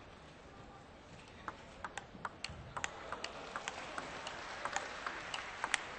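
Table tennis ball being hit back and forth: irregular sharp ticks of the ball off paddles and table, several a second, starting about a second and a half in, over a background hiss that grows louder.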